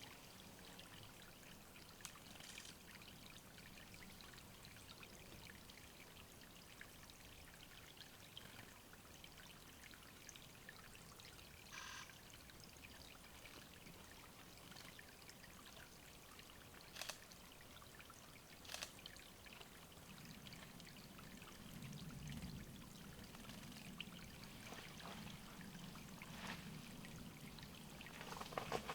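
Faint steady trickle of water at a small woodland bird watering spot, with a few brief clicks.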